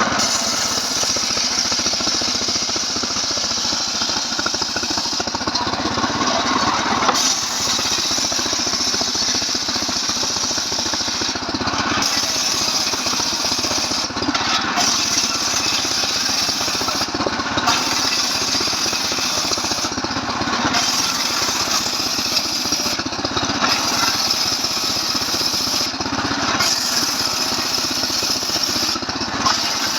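Stihl MS 381 two-stroke chainsaw running steadily under load while ripping a log lengthwise into boards. Its hiss briefly drops away about every three seconds.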